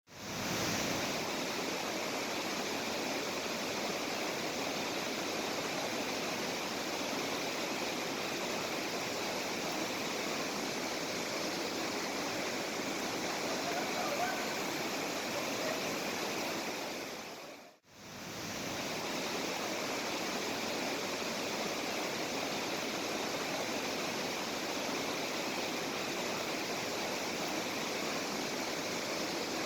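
Waterfall: a steady rush of falling water. It drops out briefly a little past the middle and fades back in.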